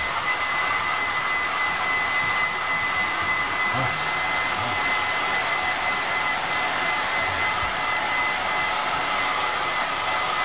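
Hand-held hair dryer running steadily, an even blowing noise with a constant high whine.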